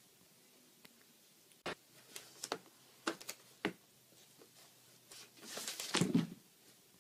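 Light knocks and taps of a cardboard tissue box on papers and a notebook as a cat with the box over its head shuffles on a desk. Near the end there is one longer, louder scraping rustle.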